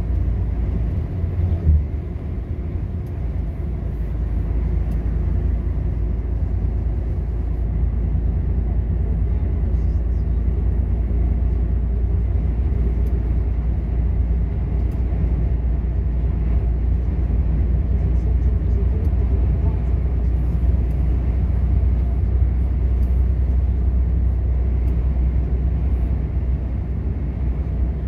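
Steady engine drone and road rumble heard inside a heavy truck's cab while cruising on the highway, with a brief knock about two seconds in.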